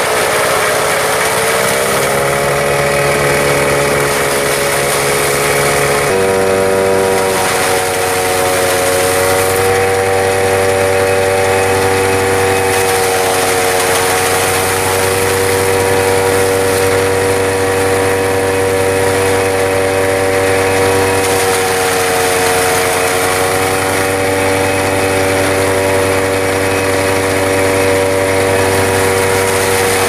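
A small diesel engine driving a farm trash cutter (crop-residue shredder) runs steadily at high speed while green plant material is fed through it, its pitch dipping and recovering slightly now and then. The sound changes abruptly about six seconds in.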